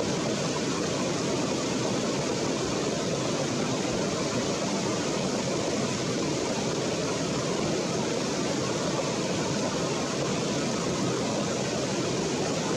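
Shallow stream water running steadily over rocks, an even rushing noise with no breaks.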